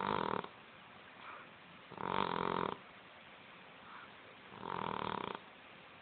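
A sleeping Persian cat snoring. There are three snores about two and a half seconds apart, each lasting under a second, with a much softer breath between them.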